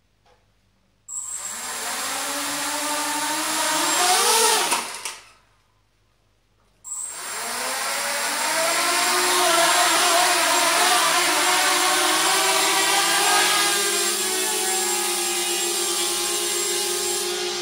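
Brushless motors and propellers of a 250-size FPV racing quadcopter (Emax 2204 2300 kV motors) spinning up about a second in, their whine rising in pitch before cutting off suddenly about five seconds in. After a short pause they start again at about seven seconds and run steadily with a high whine.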